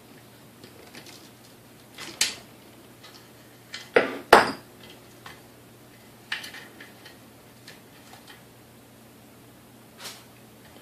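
Sharp clinks and clatters of tools and small parts being handled and set down on a workbench, a few scattered knocks with the loudest pair about four seconds in.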